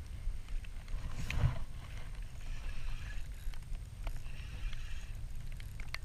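Low wind rumble and water moving against a small boat, with a whoosh about a second in and a few light clicks as a spinning reel is handled.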